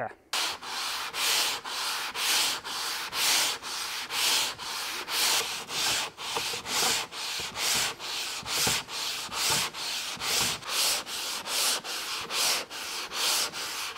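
Long manual sanding board (Flexi Sander) with a Mirka mesh sanding net being pushed back and forth over fairing compound on a fiberglass cabin top, a rasping stroke about twice a second. It is block-sanding off a guide coat to reveal low spots before priming.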